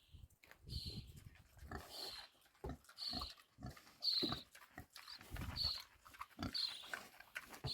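A pig eating and smacking its lips noisily: wet chewing clicks mixed with short squeaky sounds about once a second.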